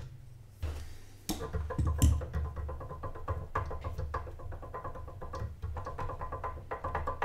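Background music: synthesizer with a steady drum beat, starting about a second in.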